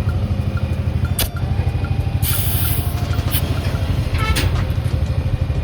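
Short hisses of compressed air at a tyre valve as tyre pressures are checked, the longest lasting most of a second. Under them a motor runs steadily with a fast low pulse.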